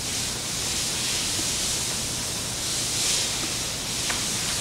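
Steady, even hiss of background noise, with at most a faint click near the end.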